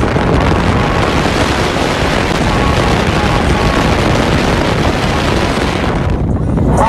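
Loud, steady rushing of wind on the microphone and road noise from a truck driving at speed, with the phone held out near the road. The rushing cuts out near the end.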